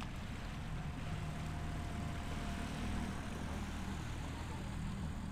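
Boat engine running at low speed: a low, steady hum.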